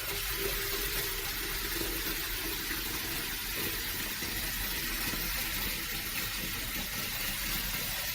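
Water running steadily from a tap into a kettle, filling it.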